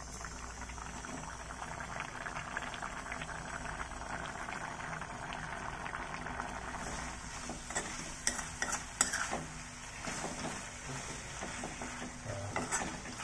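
Smoked pork curry bubbling and sizzling in a pan as its liquid cooks down. From about seven seconds in, a spoon stirs it, scraping and clicking against the pan.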